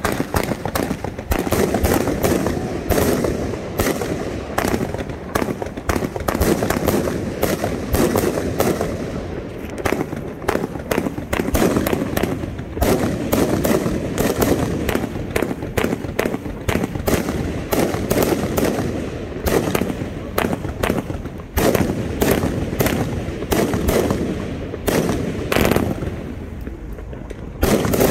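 A 36-shot 500 g fireworks cake firing: a rapid, unbroken run of sharp shots and aerial bursts.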